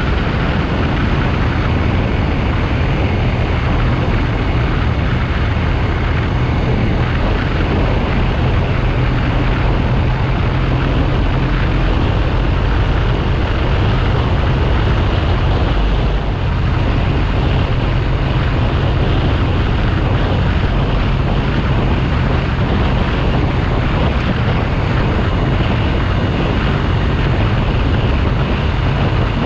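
BMW R1200GS Adventure's boxer twin engine running steadily under way, with wind rushing over the camera microphone. The engine note dips briefly about halfway through.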